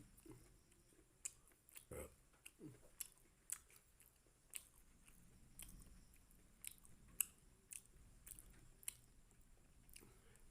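Faint close-up chewing and mouth sounds of a person eating chicken liver and gizzard curry with rice: scattered soft wet clicks and smacks at an irregular pace.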